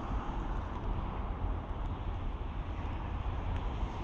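Wind rumbling irregularly on the microphone over a steady outdoor hiss of background noise.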